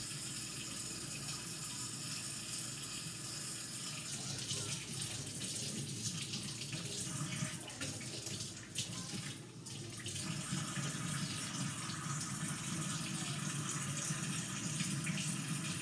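Water running steadily from a tap into a sink, with a brief drop about nine to ten seconds in.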